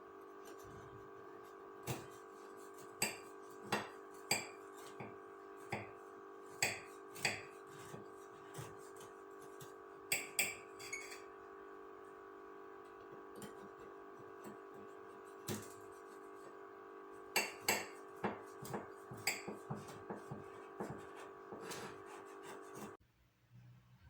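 Glass and dishes clinking and knocking as they are handled, in many short taps, some in quick clusters. Under them is a steady drone of held tones that stops abruptly near the end.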